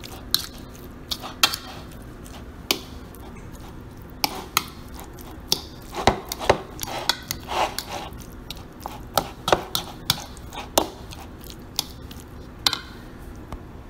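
A fork clinking and scraping against a bowl in irregular taps while ground beef and cottage cheese are stirred together, over a faint steady hum.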